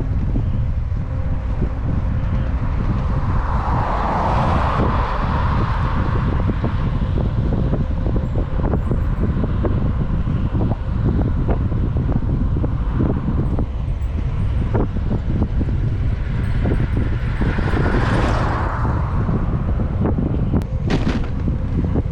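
Steady wind rumble on the microphone of a moving bicycle, with two motor vehicles passing on the highway, one swelling and fading about four seconds in and another late on.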